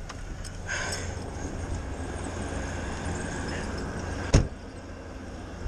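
Handling and movement noise as a person climbs out of a pickup cab, over a low steady rumble, with one sharp knock a little over four seconds in.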